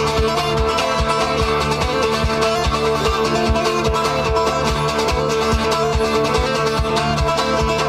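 Fingerpicked acoustic guitar playing an instrumental tune over a steady low beat.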